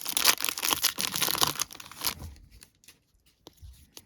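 A 2021 Topps Update baseball card pack's wrapper being torn open and crinkled: a dense run of crackling for about two seconds, then it stops, leaving only a few faint ticks.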